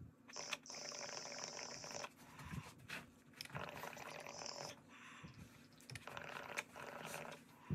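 A silicone dab rig being hit: water bubbling in the rig and air hissing past the glass carb cap on the quartz banger, in a few long draws broken by short pauses.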